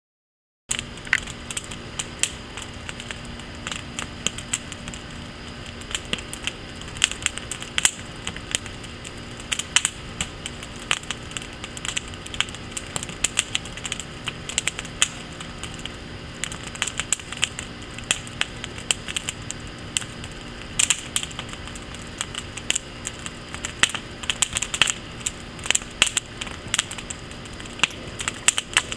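Wood fire in a firepit crackling, its burning lumber giving off frequent sharp snaps and pops of uneven loudness over a steady hiss. It starts suddenly about a second in.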